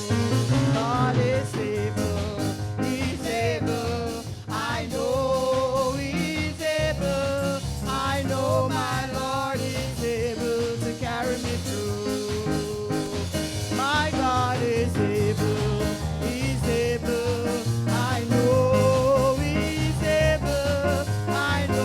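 Worship music: a singer's melody with vibrato over a band with drums and bass keeping a steady beat.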